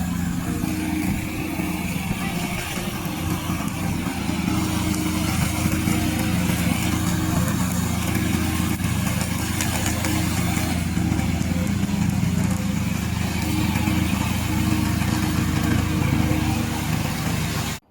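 Remote-controlled tracked lawn mower running steadily under its engine, with a broad mechanical noise over the engine's pitch. The sound cuts off suddenly near the end.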